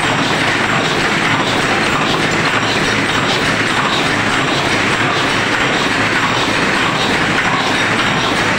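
High-speed paper cup making machine running: a steady, loud mechanical clatter.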